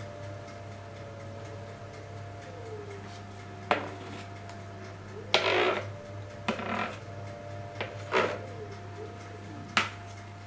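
A metal spoon scraping and knocking against the mixing bowl while the last of the batter is emptied into a tube cake pan: a few short sharp knocks and one longer scrape about halfway through. A steady low hum runs underneath.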